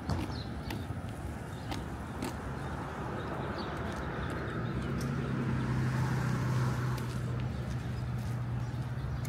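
Street traffic: a motor vehicle's low engine hum grows louder from about halfway through and holds, over a general traffic noise bed with scattered light clicks.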